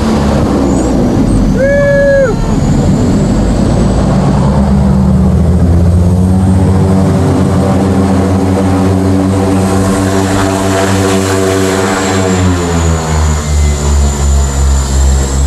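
Propeller plane's engines and propellers running loud in the cockpit during the landing rollout, with a thin high whine above. The engine note swells, then falls in pitch about twelve seconds in and settles into a pulsing throb, about two beats a second, as power comes back. A short, clear tone sounds briefly about two seconds in.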